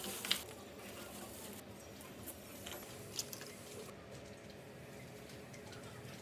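Brief rustle of a plastic bag, then a few faint, scattered clicks and handling noises over quiet room tone.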